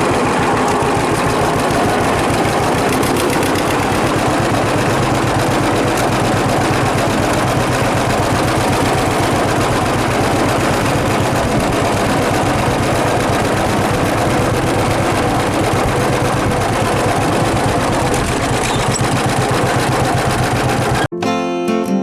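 A John Deere 6300 tractor runs steadily while working a John Deere 328 small square baler, with a fast mechanical clatter over the engine. Near the end it cuts off abruptly, giving way to acoustic guitar music.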